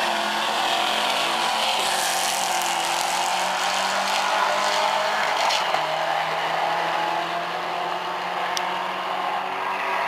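Two drag-racing cars at full throttle on a quarter-mile pass, their engines running hard through the gears and pulling away from the listener, easing off a little near the end.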